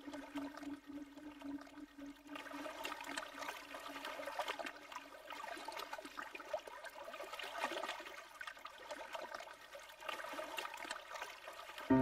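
Sea water lapping and gurgling at the waterline in an uneven, swelling wash.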